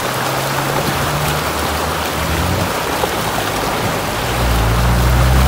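Whitewater rapids rushing loudly over rocks in a small river, a steady hiss of churning water. A low rumble grows stronger near the end.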